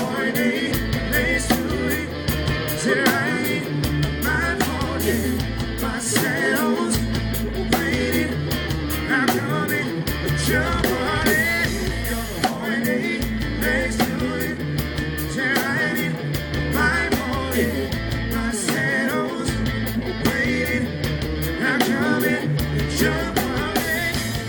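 Live reggae band playing a smooth groove: a steady bass line and drum kit under guitar, with a melodic figure repeating about every second and a half.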